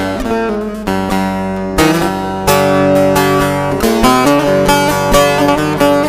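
Instrumental break of a Turkish folk song: a plucked string instrument playing a quick run of short notes over a steady backing.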